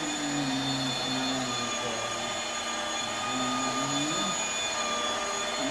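Flex 14-2 rotary polisher running steadily with a constant motor whine, its lower hum wavering in pitch as the machine is worked.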